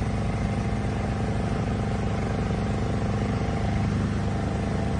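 A motor vehicle's engine running steadily at a constant speed, under a continuous hiss.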